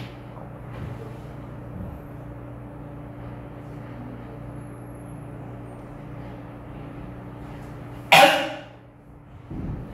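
A single loud cough about eight seconds in, over a steady low hum.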